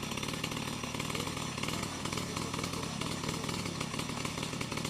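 Chainsaw running steadily, cutting through a coconut palm trunk.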